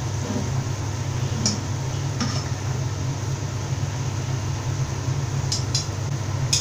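A metal slotted spatula stirring curry in a pan, with a few light scrapes and clinks against the pan, over a steady low hum.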